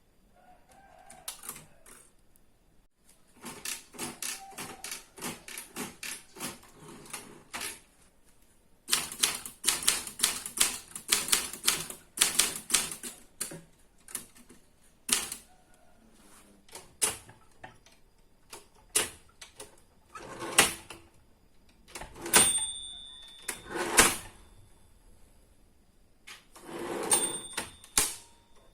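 Old rusty manual typewriter being typed on: two runs of rapid key strikes, then slower scattered single strokes. Twice in the second half a short ringing tone, the carriage bell, sounds with heavier mechanical strokes.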